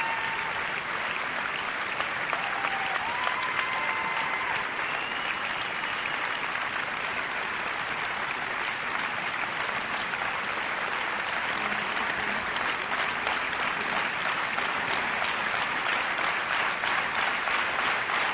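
Large audience applauding. The clapping falls into a regular rhythm and grows louder in the second half.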